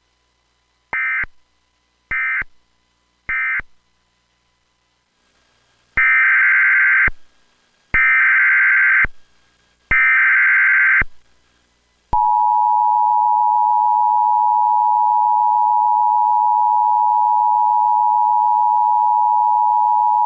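Emergency Alert System SAME data bursts: three short, shrill end-of-message bursts, then three longer warbling header bursts of about a second each, evenly spaced. About twelve seconds in, the steady two-tone EAS attention signal starts and holds for about eight seconds, announcing the next warning.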